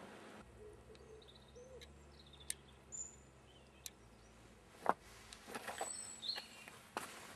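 Small birds chirping faintly, with a few sharp clicks. In the second half, footsteps crunch on loose stones and rubble.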